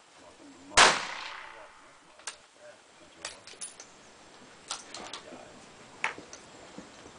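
A single large-calibre rifle shot about a second in, with a long echoing tail, followed by several light clicks and knocks.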